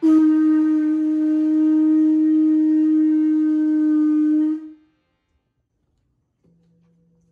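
Conch shell trumpet blown in one long, steady, loud note that starts abruptly and stops about four and a half seconds in.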